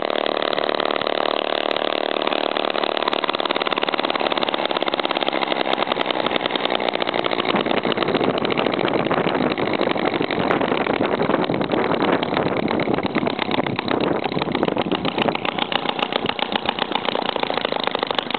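RMC Type B model hit-and-miss gas engine running steadily, a fast, even train of strokes.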